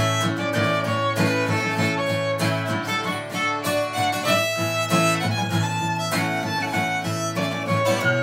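A fiddle tune played on violin, with steady strummed acoustic guitar chords backing it.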